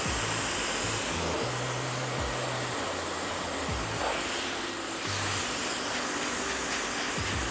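Handheld hair dryer blowing steadily as it is worked over the hair, with background music and a low bass line underneath.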